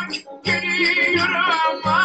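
Live Turkish folk dance music: a large double-headed drum beating a rhythm under a wavering melody line, with sharp clicking percussion on top. The music dips briefly just after the start, then comes back in full.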